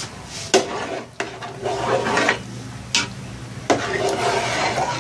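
A long-handled spoon stirring thick spaghetti sauce in a large aluminium pot, scraping through the sauce with several sharp knocks against the pot, as cubes of cheddar cheese are stirred in to melt.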